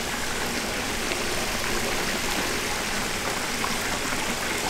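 Steady rush of moving water from a backyard swimming pool, an even, unbroken noise.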